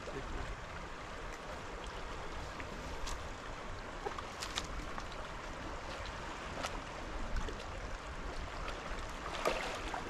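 River water rushing steadily, with a few brief knocks scattered through, the loudest near the end.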